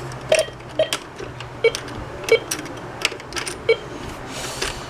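Toy play coins and money being handled in a toy cash register's drawer: a scattered series of light clicks and clinks, with a brief rustle near the end.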